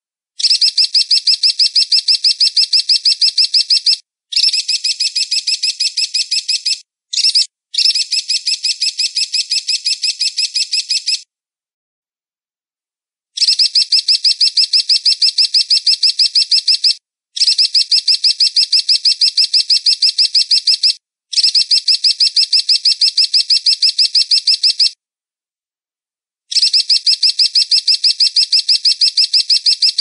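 Eagle calling in rapid series of high, thin chirps, about six a second. The bouts last a few seconds each and are broken by short, dead-silent gaps.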